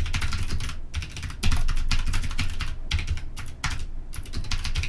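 Computer keyboard typing: quick, irregular runs of keystrokes with a few brief pauses.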